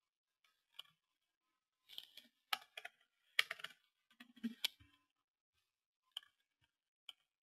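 Faint clicks of a computer keyboard and mouse: a run of key presses as a short word is typed in the middle, then two single clicks near the end.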